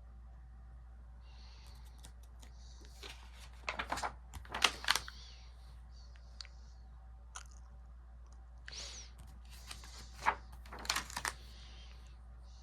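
Paper rustling and crackling as the pages of a catalog book are handled and turned, in two bursts about four seconds in and again about nine to eleven seconds in, with a few light ticks between.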